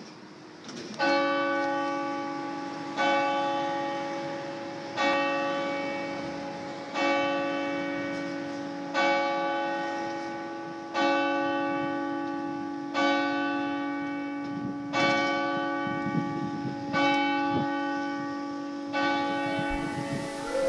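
A single church bell tolling slowly, ten strokes about two seconds apart, each ringing on and fading before the next.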